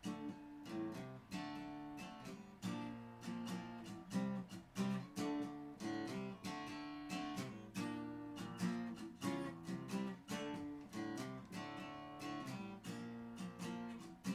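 Intro music: strummed acoustic guitar with a steady rhythm.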